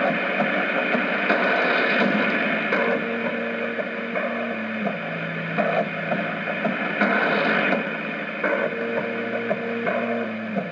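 Shortwave AM reception on 3975 kHz through a JRC NRD-525 receiver's speaker: a dense wash of static and noise, with a few steady low tones held for a second or two.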